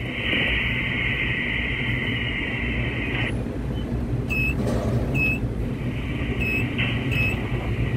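Steady low machinery rumble in a tower crane cab, with a band of static-like hiss that cuts off about three seconds in. Four short high beeps follow.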